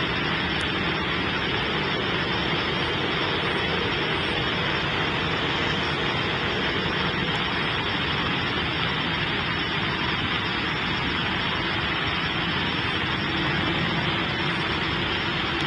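Jet engines of an Airbus A320-214 at low thrust while it taxis, a steady, even noise with a faint low hum and no change in pitch.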